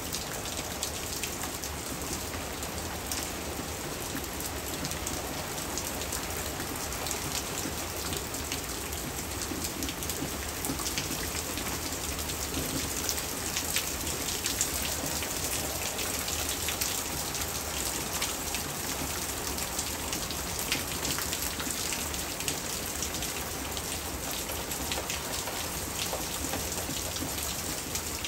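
Hard rain falling steadily, a dense hiss of countless drops ticking on hard surfaces, with no thunder.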